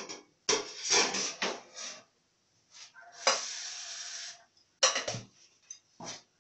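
Kitchen dishes and utensils clattering as they are handled, in several short bursts, with a steady rushing noise lasting about a second near the middle.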